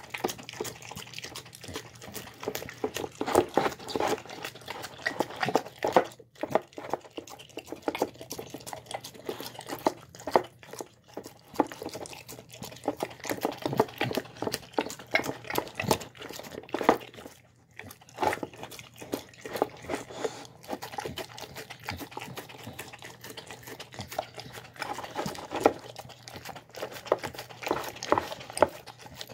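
A dog eating soft mashed food from a bowl: wet smacking and licking with quick, irregular chewing.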